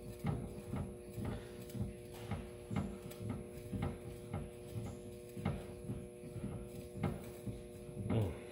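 Soft low rubbing and knocking, about three a second, from hands working an oil filter canister and its bolt on a truck engine, over a steady electrical hum.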